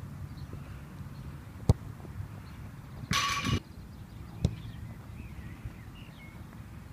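Sharp kicks of a football, one under two seconds in (the loudest) and another about four and a half seconds in. Between them, about three seconds in, a metallic clang that rings for half a second, the ball striking metal.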